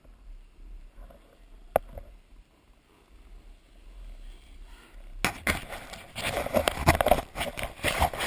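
Quiet at first with one sharp click about two seconds in, then, about five seconds in, a loud rough scraping with rapid crackling: edges sliding over hard-packed snow as the rider moves down the slope.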